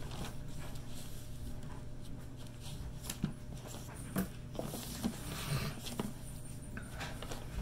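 Paper pages of a Bible rustling as they are leafed through, with a few light taps, over a steady low hum.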